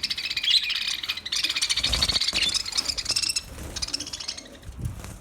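Budgerigar warbling chatter: a fast, high run of clicks and chirps that eases off about three and a half seconds in, then briefly picks up again.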